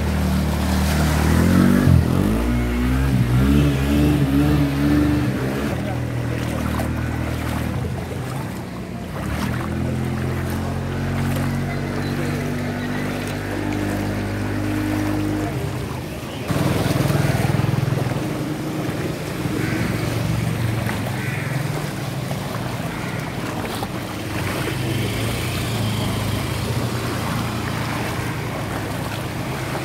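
Motorcycle engines running through floodwater, one rising in pitch about two seconds in, over water splashing and sloshing. The engine sound jumps louder again about sixteen seconds in.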